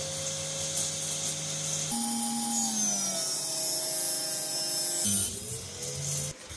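Small table saw running and ripping thin strips off an end-grain pine block: a steady high whine whose pitch sags as the blade bites into the wood and climbs back up near the end, before stopping suddenly.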